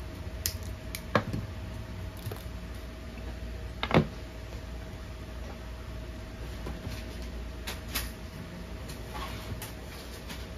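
Scattered clicks and knocks of small objects being handled on a wooden workbench, the loudest about four seconds in, over a steady low hum.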